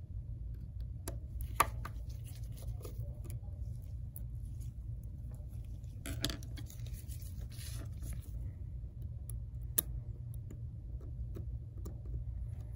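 Scattered small clicks and taps of a precision screwdriver and tweezers on the metal back of an iPhone XS display assembly, over a steady low hum. Two sharper clicks stand out, about a second and a half in and near ten seconds.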